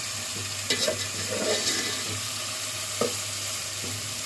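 Onions and potato pieces cooking in oil and water, sizzling steadily in an aluminium pot, while a metal spatula stirs and scrapes the pot. A few sharp knocks of the spatula on the pot about a second in and at about three seconds.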